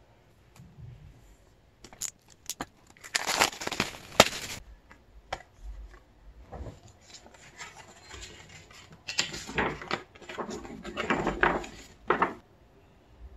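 Paper and thin card rustling and crinkling in irregular bursts as album inclusions (photocards, a photo print, a folded paper poster) are handled and a poster is unfolded, with a few sharp clicks and taps about two seconds in.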